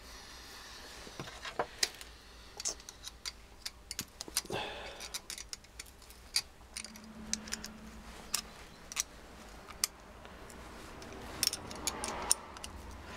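Irregular small metallic clicks and taps from a Bosch starter motor's body and brush end plate being handled and fitted together by hand, with a few sharper knocks about two seconds in and near the end.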